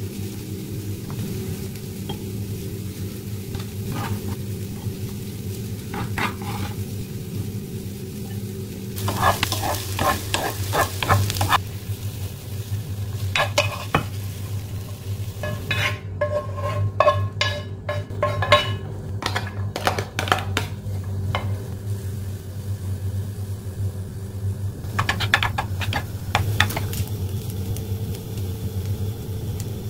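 Vegetables sizzling in a non-stick frying pan while a wooden spatula stirs them, scraping and clicking against the pan in several bursts. A steady low hum runs underneath.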